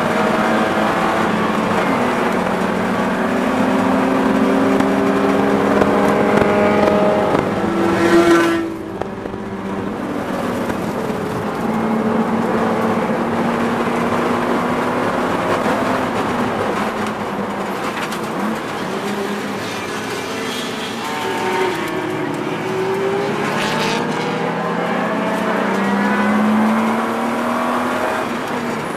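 BMW E36's inline-six engine heard from inside the cabin under race driving, revs climbing and falling with throttle and gear changes. About eight seconds in it lifts off sharply, then pulls again.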